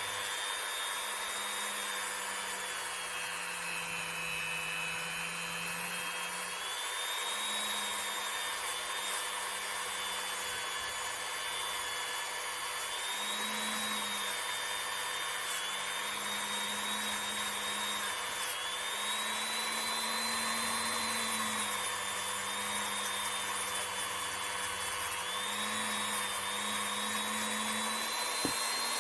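Dremel rotary tool spinning a nylon brush against a revolver's hammer and trigger, scrubbing off old dirt. A steady high whine whose pitch dips and recovers now and then.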